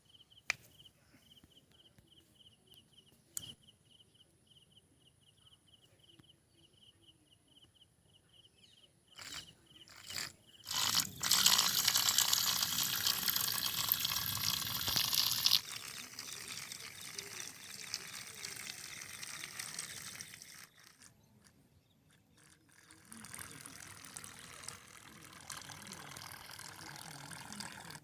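Water splashing and churning, loudest for about four seconds near the middle, then weaker, stopping briefly before starting again. Before it comes a faint high beeping repeated several times a second, with a few clicks.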